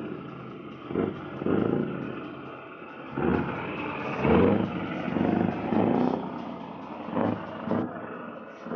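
Scania R620's V8 diesel engine revved in a string of short throttle blips over a steady idle, about nine surges in all.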